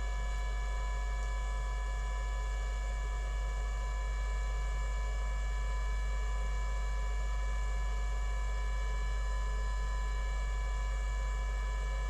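Steady electrical mains hum, a buzzy tone with many higher overtones, unchanging throughout.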